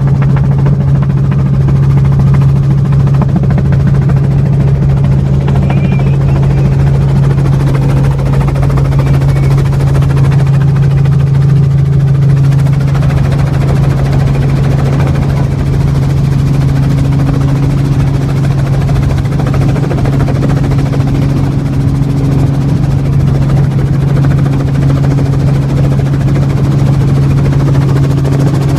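Helicopter in flight: a loud, steady drone with one deep hum held at an even pitch.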